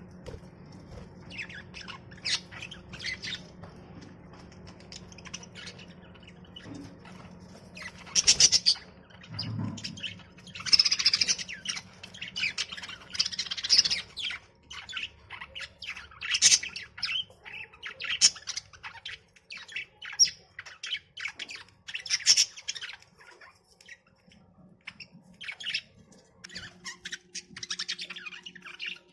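Pet budgerigars chirping and squawking in many short, high-pitched calls that come in clusters, busiest and loudest from about a third of the way in. A faint steady low hum lies under the first part.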